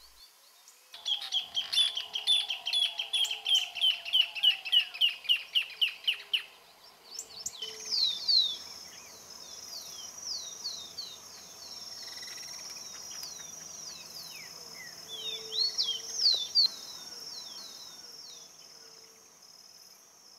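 Greater thornbird singing: a loud, rapid series of repeated notes, about five a second, for some five seconds. Then comes a run of thin, falling whistles over a steady high insect trill.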